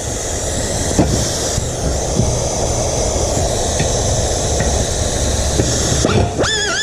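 Air-powered beveling tool, a router-like cutter for metal, running with a steady hiss and rumble as it bevels the edge of a hole in a metal bracket. Near the end a wavering pitched tone with overtones comes in.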